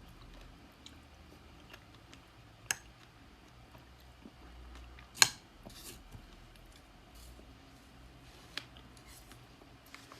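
A few sharp, isolated clicks and taps from small household handling, the loudest about five seconds in, over a faint low hum.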